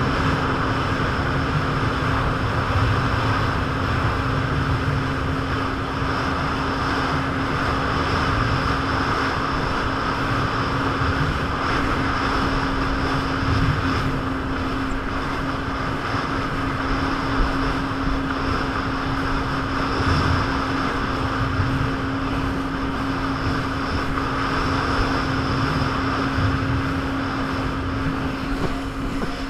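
Jet ski engine running steadily at a constant speed, with a steady droning tone and a rushing noise, and no change in revs.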